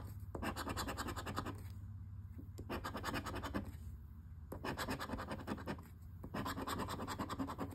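A scratcher tool rubbing the coating off a paper lottery scratch ticket in quick back-and-forth strokes, in four bursts with short pauses between.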